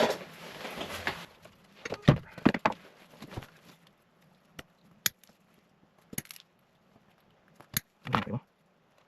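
Irregular clicks, taps and light knocks of small plastic lens parts and a hand tool being handled and worked on a bench, a few of them sharper and louder.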